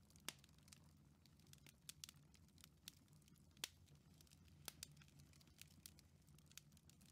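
Near silence with faint, irregular crackles of a fireplace fire.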